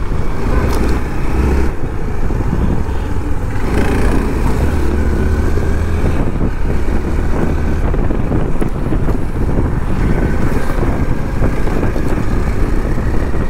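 Motorcycle running in slow, heavy road traffic, with a steady rumble of the engines of surrounding vehicles.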